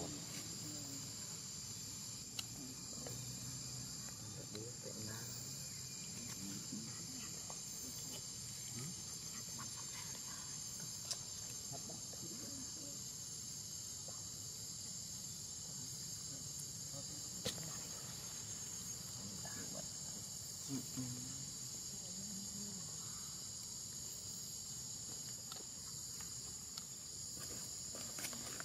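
Steady, high-pitched drone of an insect chorus, with a few faint isolated clicks.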